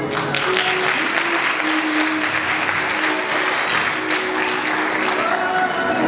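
Audience applauding over background music. The applause breaks out suddenly at the start and dies down about five seconds in, while the music plays on.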